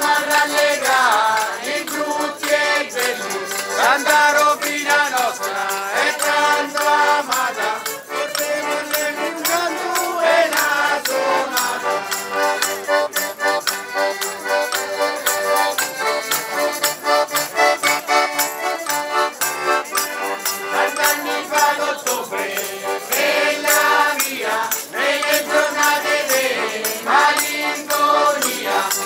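A mixed group of men and women singing a traditional folk song together, accompanied by two diatonic button accordions, with a shaken rattling percussion keeping time.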